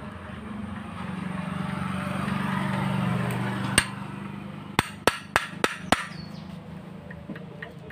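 Sharp metallic clicks of a ring spanner on the lock nut of an R175 diesel's rocker-arm valve-clearance adjuster: one click, then five in quick succession about a third of a second apart. Under the first half a steady low hum swells and fades.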